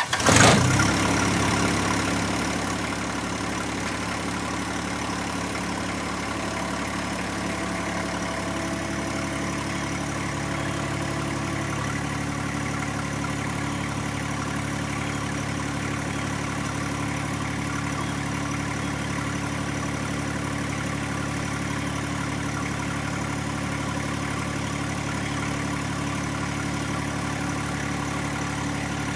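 John Deere 1025R compact tractor's three-cylinder diesel engine starting up, running loudly for a moment, then settling into a steady idle.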